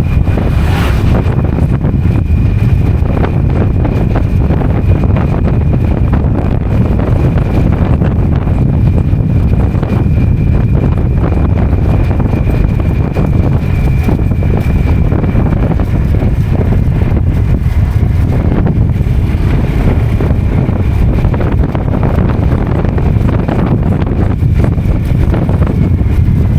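Motorcycle ride with heavy wind buffeting on the microphone over the running engine and road noise. A faint steady high whistle sits above it for the first half or so.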